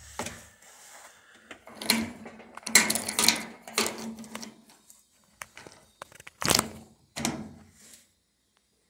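Irregular plastic clunks, knocks and scrapes as a top-load washer's plastic suspension socket and strut parts are handled and worked loose.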